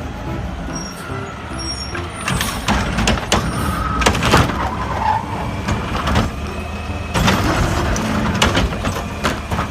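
Plastic toy trucks being handled and loaded, with repeated knocks and clatter over a steady low rumble.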